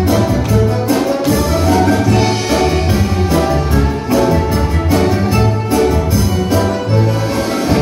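Loud orchestral dance music with brass and strings and a strong, regular beat. It breaks off at the end.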